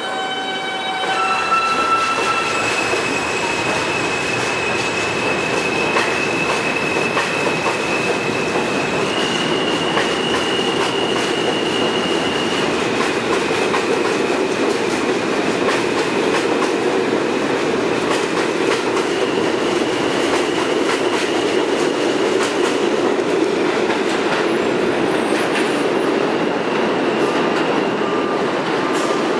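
R160 subway train pulling out of the station. Its traction motors whine in steady tones that step up in pitch over the first couple of seconds and then hold, shifting now and then. Under the whine run the rumble and clickety-clack of the wheels on the rail joints as the cars pass.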